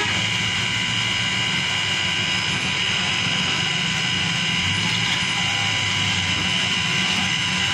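Electric blender motor running steadily at high speed with a constant whine, blending a banana milkshake in the jar.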